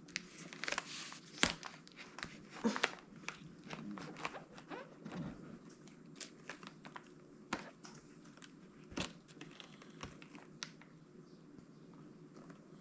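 Hands crinkling and tearing something, with irregular sharp clicks and crackles, some close together and some a second or more apart.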